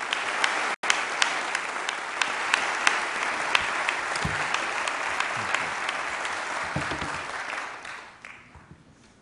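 A large audience applauding, loud and steady, with single sharp claps standing out from the mass; it dies away about eight seconds in.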